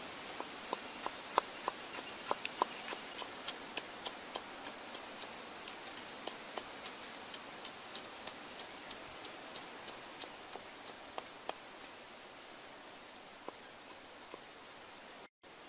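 A cleaver chopping green onions on a wooden chopping board: steady, even chops about three a second, thinning to a last few strokes near the end.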